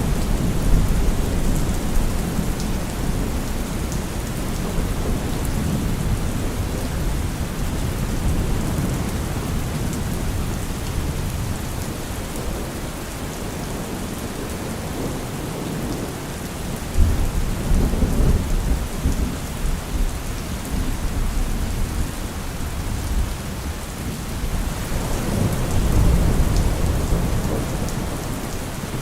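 Steady rain falling, with low thunder rumbling that swells three times: near the start, about two thirds of the way through, and again near the end.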